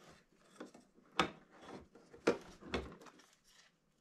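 Hands handling a G&G PRK9 airsoft gun: light rubbing and rustling of its parts, with three sharp clicks or knocks about a second apart.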